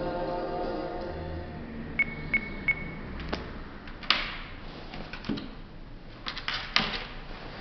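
Music playing from a homemade MP3 player built into a stone, fading out in the first second or two. A little later come three short high electronic beeps, then scattered clicks and knocks.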